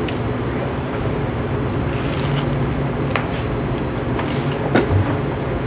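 Steady hum of commercial pizza-kitchen machinery with a low drone, broken by a few sharp clicks and knocks of handling, about three seconds in and again near five seconds.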